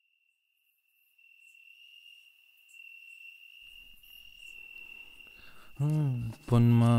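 Steady, high cricket-like trill that fades in and slowly grows louder. About six seconds in, a low voice loudly begins singing in long, sliding notes.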